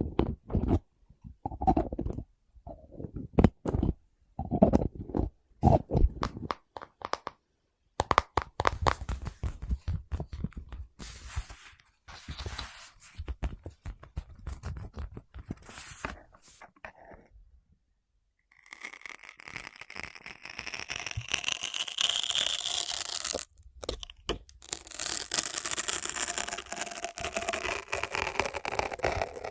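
Close-miked ASMR trigger sounds of objects being handled. First come short separate bursts of rubbing and scraping, then a dense run of crackling clicks, and from about two-thirds of the way in a long steady hissing rush with one short break.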